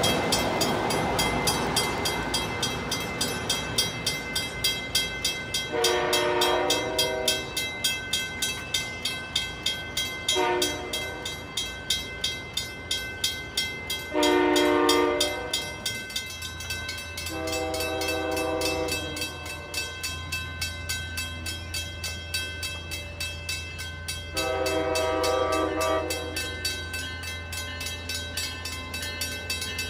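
Train horn sounding a series of long and short chorded blasts from an approaching train, over a grade-crossing bell ringing steadily about twice a second. A low rumble of the train comes in about halfway through.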